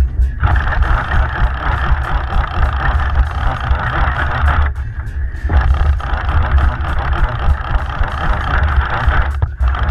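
Charter boat's engine running with a steady low rumble under a rushing hiss of wind and water, the hiss dropping away briefly about halfway through.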